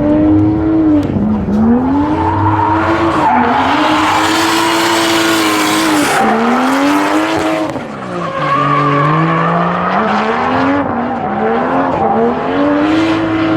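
Drift car engine revving high and dropping back over and over, about every two seconds, with tyres screeching hard through a slide in the middle.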